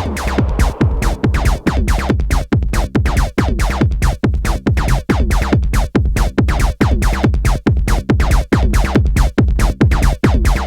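Electronic music played live on hardware synthesizers and a drum machine: a fast, even rhythm of short hits over a deep bass line.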